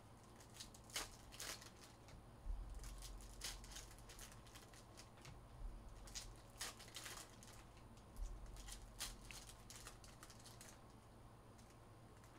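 Faint, scattered clicks and rustles of basketball trading cards being handled, flipped and stacked on a table, with a few soft knocks.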